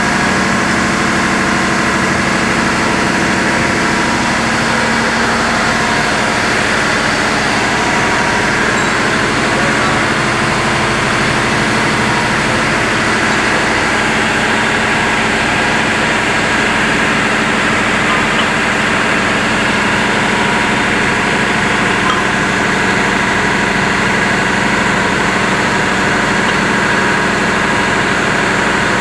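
Loud, steady drone of an engine running at constant speed, with no change in pitch or level.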